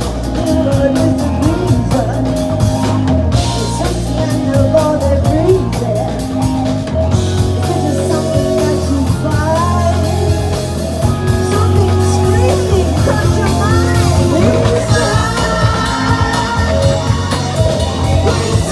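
A rock band playing live: a woman singing lead over electric guitars, bass guitar and a drum kit keeping a steady beat.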